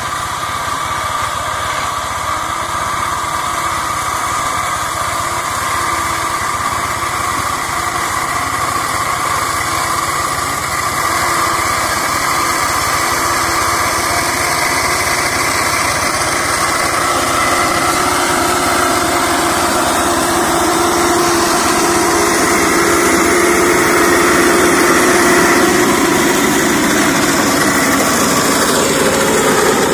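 Engine of a two-wheel hand tractor converted into a brush mower, running steadily while it cuts through undergrowth. It grows gradually louder as it comes closer.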